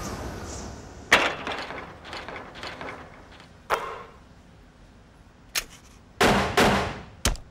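A series of sharp impact sounds, each trailing off briefly, with a longer, louder crash near the end.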